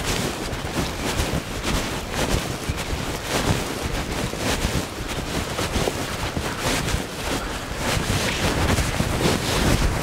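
Wind buffeting the microphone: a steady rushing noise that swells and fades in gusts.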